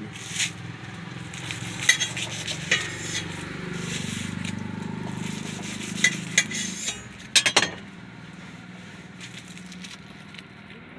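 Knife cutting through foil-wrapped burgers on a flat iron griddle: sharp knocks and scrapes of the blade on the metal with crinkling foil, over a steady hiss. The loudest knocks come in a quick cluster about seven and a half seconds in.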